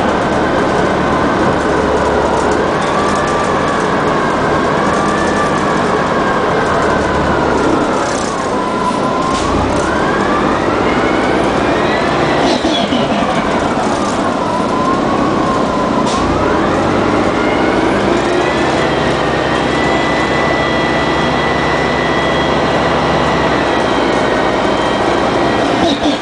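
Drivetrain of a 1999 Orion V CNG bus with a Detroit Diesel Series 50G engine and an Allison World B400R transmission, running under way: a continuous low drone with a whine on top that dips and rises in pitch twice, then holds steady for the last several seconds.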